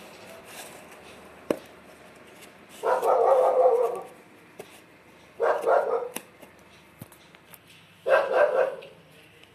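A dog barking in three bouts of several quick barks, about two and a half seconds apart; these are the loudest sounds. One sharp click comes earlier, about a second and a half in.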